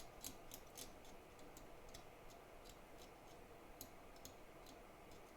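Near silence with faint, irregular light ticks, a few a second, from small tool work at the bench.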